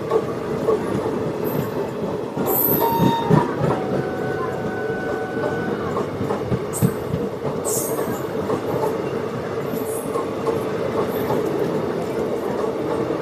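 Moving express train's coach wheels running on the rails, a steady rumble. Brief high metallic wheel squeals and screeches come about two and a half seconds in and again around seven to eight seconds in.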